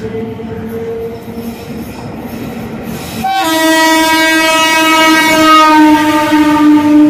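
An Indian Railways WAP-4 electric locomotive's air horn sounding one long, loud blast as the express runs past the platform, starting about three seconds in and held to the end, its pitch sinking slightly as the locomotive passes.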